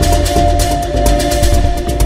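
Outro music with a fast, driving beat and held synth tones over it.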